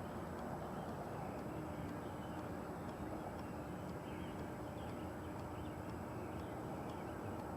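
A steady low rumble, even in level, with a faint steady hum through the middle.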